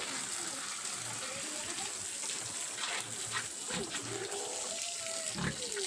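Water running steadily, with pig grunts and calls now and then.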